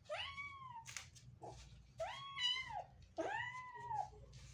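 Tabby kitten with a broken hind leg meowing in distress three times while the leg is being splinted and cast; each cry is long, rising and then falling in pitch. Short rustles between the cries.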